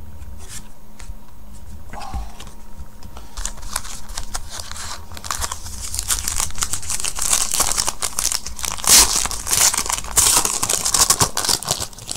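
A trading card pack wrapper being torn open and crinkled, a dense crackle that builds from a few seconds in and is loudest near the end. Quieter handling of the cards comes before it.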